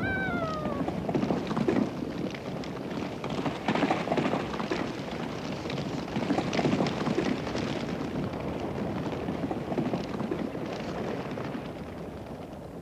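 A herd of horses galloping: a dense, uneven clatter of hoofbeats over a rumble, fading near the end. One horse whinnies briefly at the very start with a falling call.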